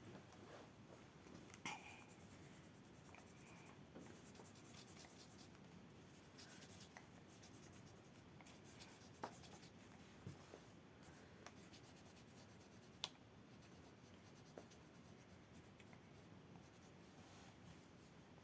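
Faint scratching of pastel rubbing across paper as a drawing is coloured in, with a few small sharp ticks, the loudest about 13 seconds in.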